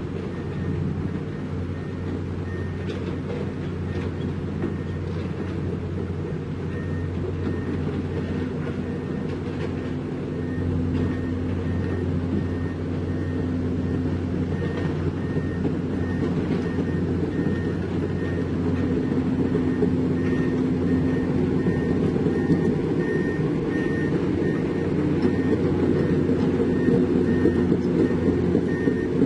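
Heavy diesel engine of construction machinery running steadily, getting somewhat louder about a third of the way in. A warning alarm gives a series of short, high, repeated beeps throughout.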